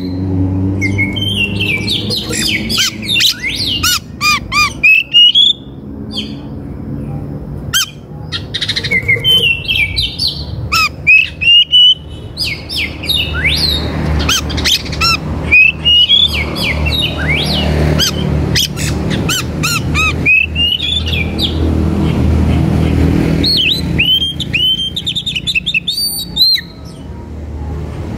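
Birds chirping and calling, many short rising and falling chirps with frequent sharp, loud calls, over a steady low drone.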